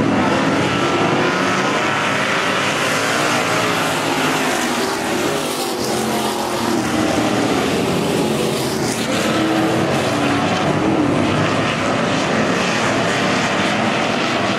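A pack of dirt-track stock cars racing, many engines running hard at once, their pitches wavering up and down as the cars go through the turns.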